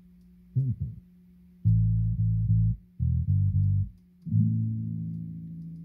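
Bass-heavy music played through a car's mid-bass speakers alone, so only the low notes come through: a run of bass notes, the last one ringing out and fading. It is being played to check the mid-bass time alignment. A faint steady low hum sits underneath.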